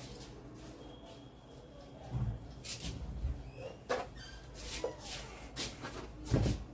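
Whiteboard being wiped clean: a series of short rubbing swipes, a few per second, starting about two seconds in, with a louder low thump near the end.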